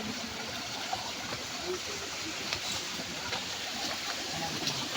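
A mountain stream running over stones: a steady rush of water, with a few faint clicks scattered through it.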